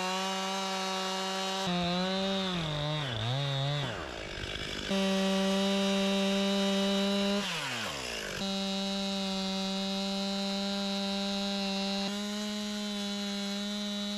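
A two-stroke Stihl chainsaw runs at high revs while cutting into a log, as a steady high whine. Its pitch sags under load about two seconds in and drops sharply once near the middle, then holds high and steady again.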